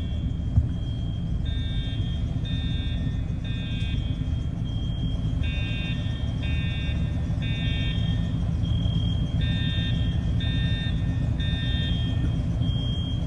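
School fire alarm sounding the temporal-three evacuation pattern: three short electronic horn blasts, a pause, repeating about every four seconds, with a steady high tone holding through the pauses. A steady low rumble runs underneath, and there is a single knock about half a second in.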